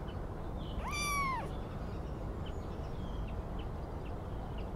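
A kitten mewing once, a single high call about a second in that rises and falls in pitch, over steady low background noise.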